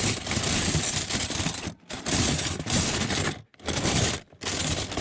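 Small stainless steel utensils and cutlery clattering together as they are rummaged through and sorted, in long stretches of metallic jangling broken by two brief pauses.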